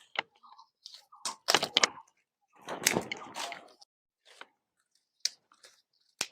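Indian bay leaf (tej patta) sprigs being handled, the leaves crackling and rustling in irregular crunches, with a longer rustle about halfway through.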